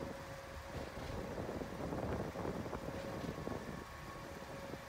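Wind on the microphone and a steady rushing noise, with a faint hum that comes and goes.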